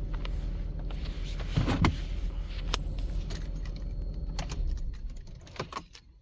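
Car keys jangling and clicking, over the steady low hum of a 2014 Ford Fusion's running engine. The hum dies away about five seconds in as the car is switched off.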